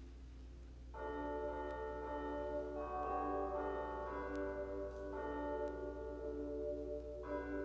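Church bells ringing: several bells struck together about a second in, then fresh strikes about every two seconds, their tones ringing on and overlapping. A low steady hum lies underneath.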